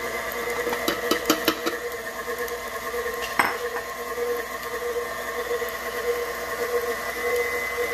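KitchenAid Professional 5 stand mixer running steadily with an even motor whine while its flat beater works a stick of butter into batter in the stainless-steel bowl. There is a quick run of clicks about a second in and one louder knock of the beater against the bowl a little past three seconds.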